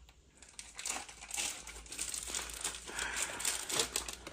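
Packaging crinkling and rustling as it is handled, full of small crackles. It starts softly and grows busier from about a second in, loudest near the end.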